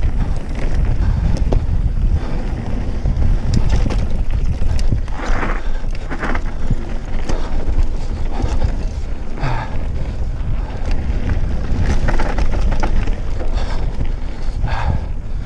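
Wind buffeting the camera microphone on a Cube Stereo mountain bike descending a dirt trail, a constant rumble under tyre noise, with repeated knocks and rattles as the bike goes over bumps and a few short scuffs.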